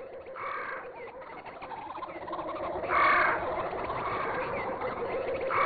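Jungle soundscape of birds calling: a louder call comes about every two and a half seconds, with short chirps between, over a steady background hum.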